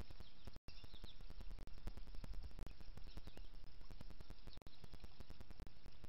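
Steady outdoor hiss and low rumble with frequent crackling clicks, briefly cutting out near the start, with a few faint, short bird chirps.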